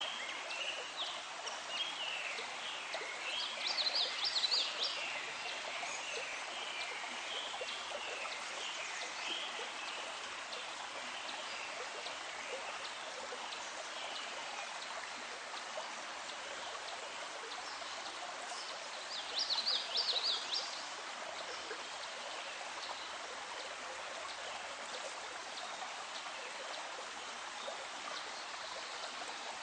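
Nature soundscape of a steadily running stream with birds calling over it. There are two louder bursts of rapid high chirps, about four seconds in and again around twenty seconds in.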